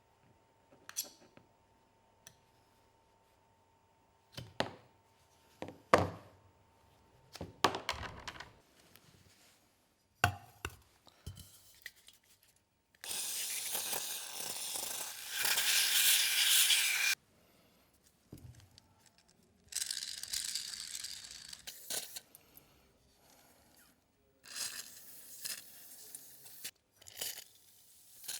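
Small objects being handled, with scattered clicks and knocks, then several bursts of hissing lasting a few seconds each, the longest and loudest a little before halfway.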